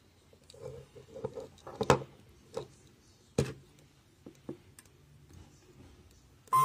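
Scattered light clicks and knocks of objects being handled, with two sharper knocks about two seconds and three and a half seconds in. No motor is heard running.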